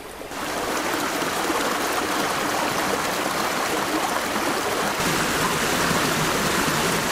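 Small river running over rocks in a shallow riffle: a steady rush of water that comes in just after the start and grows a little fuller about five seconds in.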